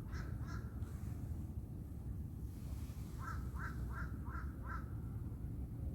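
A bird calling: a few faint calls near the start, then five short calls in quick, even succession a little past the middle, over a steady low rumble.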